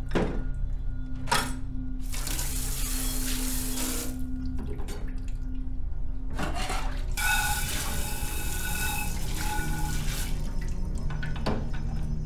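Water spraying from a commercial pre-rinse spray nozzle into a steel dish sink, in spurts that stop and start several times.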